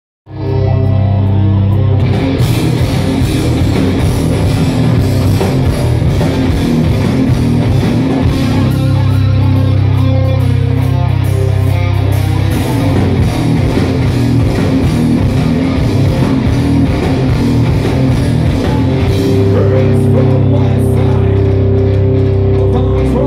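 Live rock band playing loud, with electric guitars, bass guitar and drum kit, heard from among the audience. The music comes in within the first half second.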